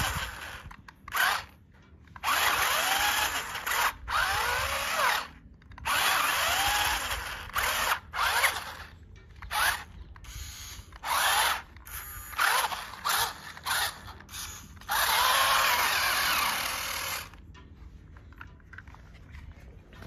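Electric drive motor and gears of a toy RC rock crawler whining in short throttle bursts, the pitch rising and falling with each burst, while its wheels spin in loose dirt on a steep slope. The longest burst, about two seconds, comes near the end, and then the whine stops.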